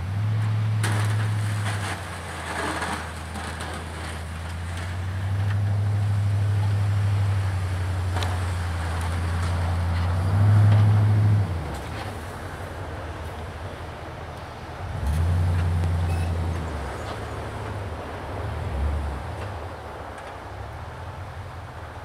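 Chevrolet Silverado 2500HD's Duramax diesel engine working under load as the truck pushes snow with a V-plow. The engine swells and eases off in several surges and is loudest about ten seconds in.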